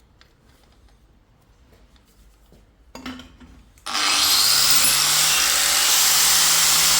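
Quiet handling with a few faint clicks, then about four seconds in a power grinder starts. Its motor hum climbs as it spins up, then holds steady as a 120-grit abrasive pad rubs loudly against the metal exhaust tube, buffing down the brazed joint.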